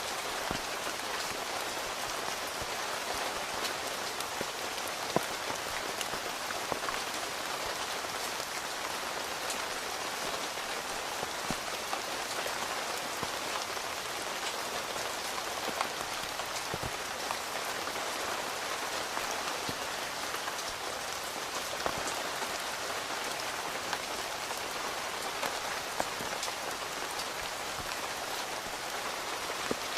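Steady rain heard from inside a tent, falling on the tent fabric, with single heavier drops striking now and then.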